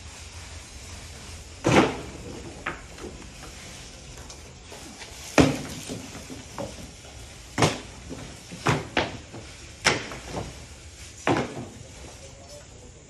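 A series of about nine sharp knocks or bangs at irregular intervals, roughly one to two seconds apart, the loudest two near the start and about five seconds in, over a low steady hum.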